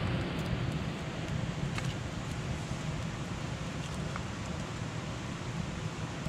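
Small wood-and-kindling fire burning in a metal fire pit: a steady low rumble with a few faint crackles and pops scattered through it.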